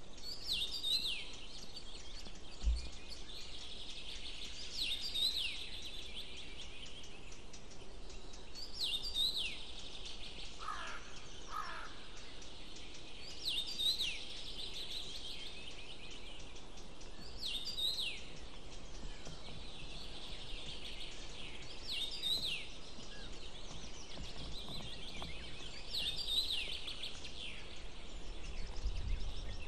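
A small songbird singing the same short, falling phrase about every four seconds over a steady background hiss. Two lower, falling calls from another bird come about ten seconds in.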